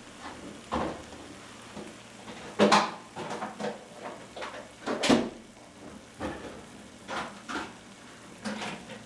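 Quinoa risotto with shrimp cooking in a stainless steel pan with a low sizzle. Over it come a handful of irregular kitchen knocks and clatters, the two loudest a little under a third of the way in and just past halfway.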